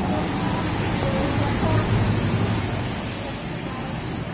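Tram pulling away down wet rails, its low running hum and wheel noise fading as it recedes, over a steady hiss of rain and wet ground.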